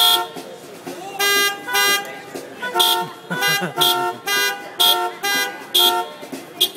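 Car horns honking a rhythmic sequence of short blasts and a longer held one about a second in, played as a tune in a car-horn concert.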